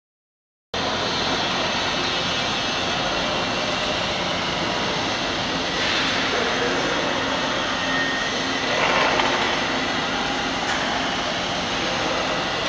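Steady, loud machinery noise from a construction site, such as running fans, blowers or engines. It starts abruptly under a second in and holds even, with only small swells.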